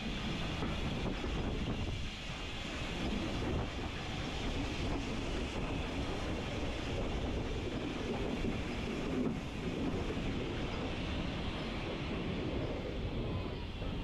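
Steam train moving along the platform, heard from just behind its 0-6-0 tank locomotive: a steady rumble of the moving train, with wind on the microphone.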